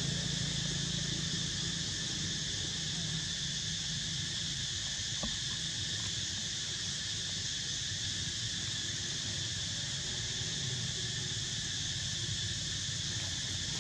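Steady chorus of insects droning at a few fixed high pitches, over a low hum that fades away in the first couple of seconds; a single faint click about five seconds in.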